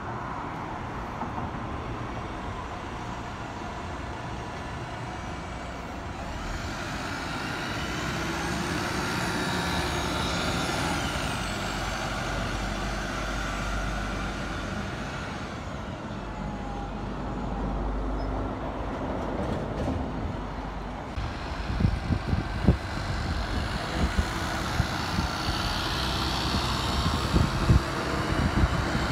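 City buses running through a bus interchange: steady engine and tyre noise that swells as a bus drives past. Wind buffets the microphone in the last third.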